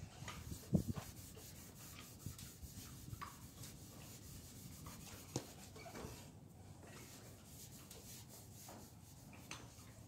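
Microfiber towel rubbing over a metal exhaust tip, buffing off chrome polish: a faint, steady scrubbing with a few light knocks, the loudest about a second in.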